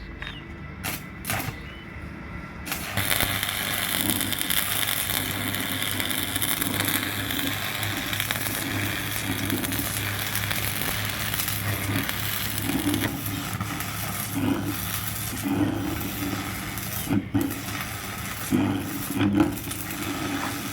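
A couple of knocks, then a workshop machine starts about three seconds in and runs steadily with a low hum and a hiss.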